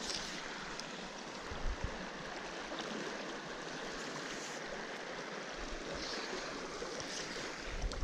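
Fast-flowing mountain trout stream rushing steadily over its bed, with one brief low thump a little under two seconds in.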